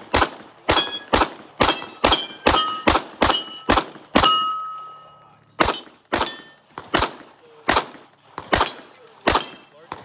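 Kahr pistol firing a rapid string of about twenty shots in quick groups, with a short pause partway through. Several shots are followed by a ringing metallic tone that fades away, like hits on steel targets.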